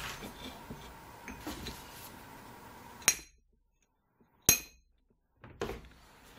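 A few sharp clinks of a hand tool and a stone knocking against a steel bench vise. The two loudest, about three and four and a half seconds in, each have a short metallic ring.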